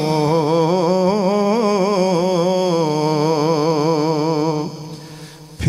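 A man's voice holding one long drawn-out note of an unaccompanied naat, the pitch wavering in a slow vibrato; the note ends about four and a half seconds in.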